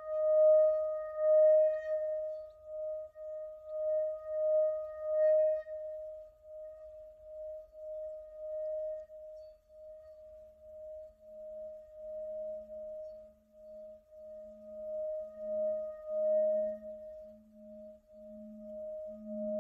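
Tibetan singing bowl ringing on after a strike with a padded mallet, its tone wavering in a pulse about twice a second. From about halfway, a wooden stick is rubbed around the rim and a deeper hum swells up beneath the ringing.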